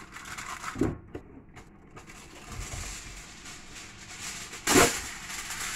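Aluminium foil crinkling as it is pressed and tucked over a baking pan, with a louder sharp crackle near the end.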